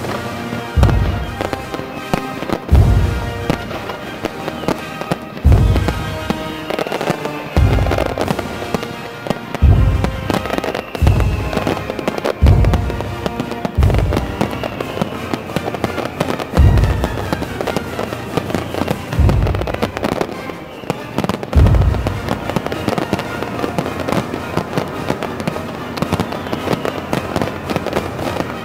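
Fireworks display: aerial shells bursting with about eleven deep booms, one every two seconds or so, over crackling stars, with music playing throughout. The booms stop about 22 seconds in, leaving the crackle and the music.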